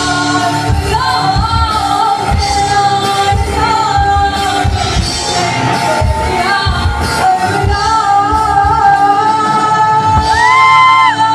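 Live rock band playing, heard from the audience: a woman singing lead over electric guitars and drums, holding a long high note near the end.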